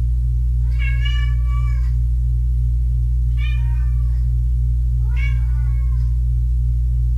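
A kitten meowing three times, each high-pitched meow lasting about a second, over a steady low hum.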